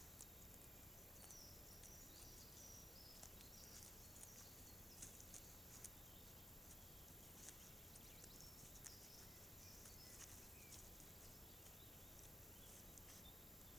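Near silence: faint outdoor ambience with scattered short, high chirps and ticks throughout.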